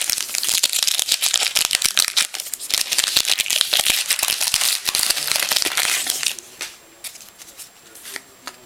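Trading-card pack wrapper being torn open and crinkled: a dense crackle that lasts about six seconds, then drops to a few light clicks and rustles.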